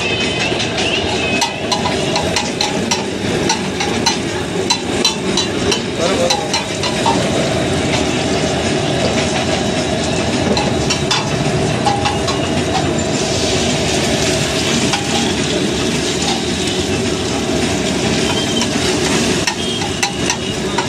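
Chopped onions frying in oil on a large flat iron griddle, a steady sizzle, with a metal spatula clicking and scraping against the iron plate. The hiss grows louder for a few seconds about halfway through.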